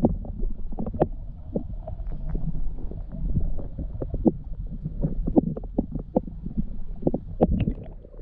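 Muffled underwater sound picked up by a camera held in a flowing river: a low rumble of moving water with many irregular clicks and knocks.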